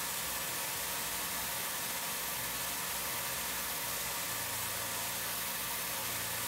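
Tormach 770 CNC mill running a 1/16-inch end mill through P20 tool steel: a steady hiss over a low hum, with a second low hum joining about four seconds in.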